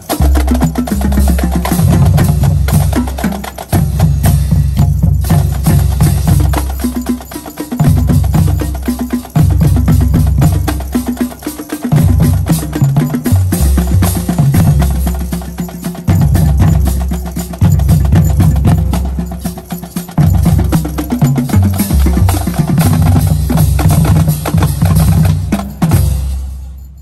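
Marching band music: rapid, sharp drum and percussion strikes over low sustained notes in repeating phrases, loud, stopping abruptly near the end.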